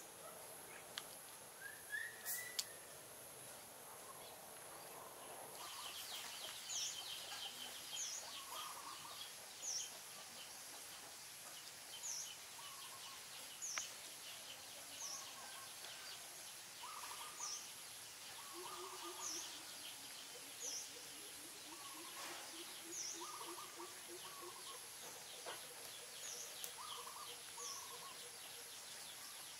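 Faint outdoor ambience of birds calling over and over. From about six seconds in, short high chirps come roughly once a second, with lower calls in between, over a steady high hiss.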